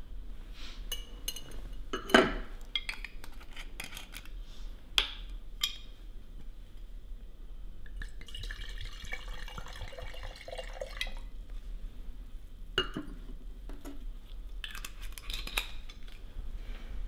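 Wine poured from a bottle into a stemmed wine glass, a steady pour of about three seconds starting around eight seconds in. Before and after it come scattered clinks and knocks of glass, the loudest a sharp knock about two seconds in.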